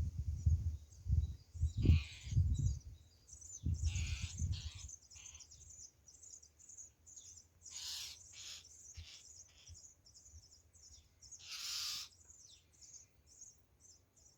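Small songbirds chirping and twittering, with many short high calls throughout. For the first few seconds low rumbling bursts sit under the birdsong.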